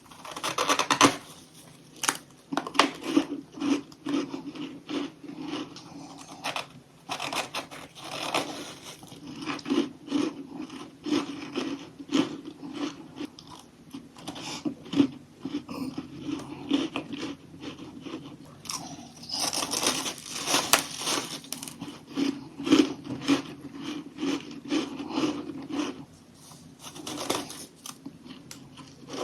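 Close-miked biting and chewing of crunchy humidifier freezer frost chunks: dense, sharp crackling crunches, with a louder, denser run of crunching about twenty seconds in.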